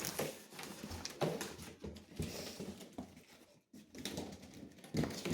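Cardboard box and packaging being handled during an unboxing: irregular knocks, scrapes and rustles.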